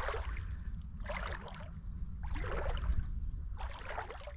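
Shallow dam water sloshing in short splashes about once a second, over a steady low rumble of wind on the microphone.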